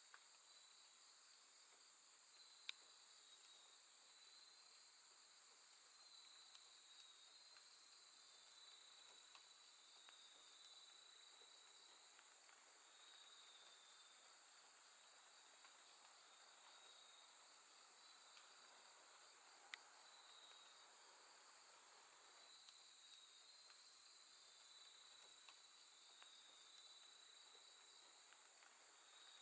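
A chorus of grass insects: a steady high trill over a lower, wavering chirping, with runs of quicker, higher pulsed chirps twice. Two sharp ticks stand out, a few seconds in and again about two-thirds through.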